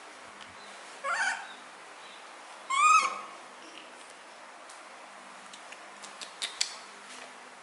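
Two short, high-pitched cries from a young animal, one about a second in and a louder one about three seconds in, each rising and then falling in pitch. A few sharp clicks follow near the end.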